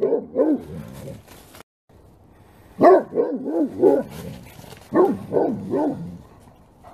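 Great Pyrenees barking: a few barks at the start, then two quick runs of four or five barks each, about three and five seconds in.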